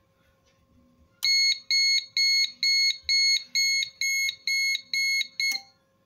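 Haljia AD16-22SM panel-mount LED buzzer sounding an alarm: about ten high-pitched beeps, roughly two a second, that cut off suddenly. It is switched by a Sonoff Basic RFR3 relay when a 433 MHz door contact sensor is opened.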